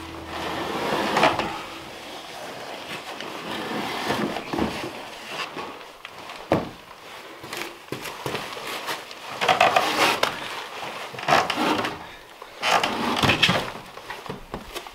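Wooden skid carrying a heavy cast-iron wood stove being heaved and shoved across flagstones: several bouts of wood scraping and grinding on stone, with a sharp knock about six and a half seconds in.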